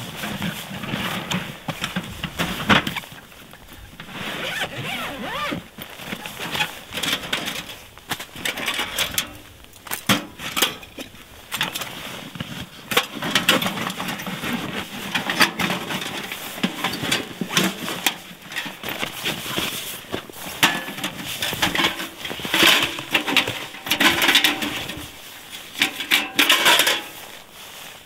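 Handling noise from unpacking a metal tent stove from its soft case: fabric rustling with frequent light clicks and metal clinks, coming in irregular clusters.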